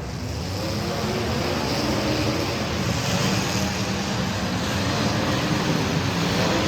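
Street stock race car engines running hard at speed, a steady engine drone with the pitch shifting slightly over a rushing noise.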